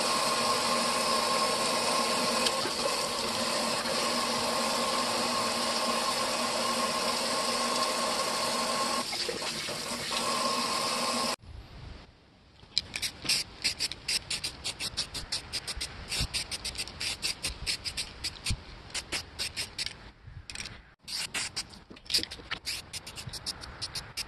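Tap water running steadily into a stainless steel sink, cut off abruptly about eleven seconds in. It is followed by a rapid, irregular run of short high ticks.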